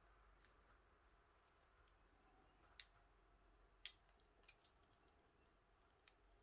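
Faint clicks and light ticks of a small lithium-ion cell pack being handled with the fingers. There are two sharper clicks about a second apart near the middle, then a few smaller ticks.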